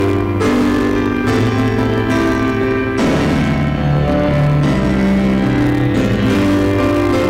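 Improvised piano played on a Casio WK-7600 keyboard's piano voice: sustained chords over low bass notes, changing every second or so, with a fresh chord struck about three seconds in.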